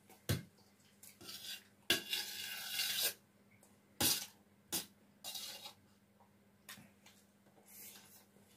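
Steel spoon clinking and scraping against a stainless steel plate while scooping up fried rice: a few sharp clinks, with a longer scrape about two seconds in and a shorter one about five seconds in.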